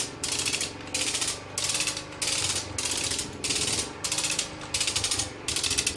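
A tool working in regular rasping strokes, about three every two seconds. Each stroke is a rapid chatter, with a low hum underneath.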